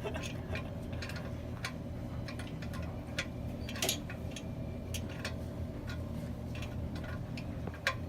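Scattered light clicks and taps of tools and toilet parts being handled during a repair, a slightly sharper click about four seconds in and another near the end, over a steady low hum.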